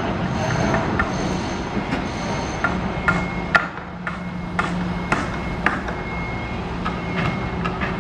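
Construction site noise: steady machinery hum with a string of sharp, irregular metal knocks from about two and a half seconds in, some ringing briefly.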